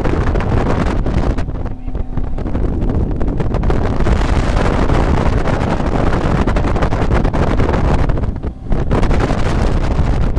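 Wind buffeting the microphone on a MasterCraft ski boat under way, over the boat's engine and the rush of its wake. The wind eases briefly twice.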